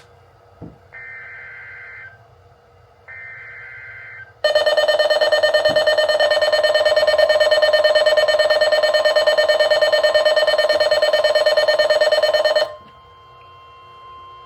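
Emergency Alert System broadcast: the last two of three short warbling data bursts of the digital SAME header, each about a second long and a second apart, then a loud, buzzy steady attention tone starting about four seconds in, lasting about eight seconds and cutting off abruptly. A faint steady tone follows.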